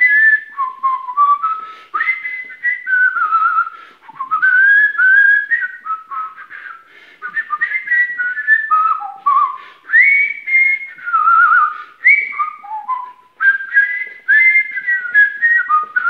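Polyphonic whistling: a man whistles an improvised tune in two notes at once, two parallel pitches moving together in short stepped phrases.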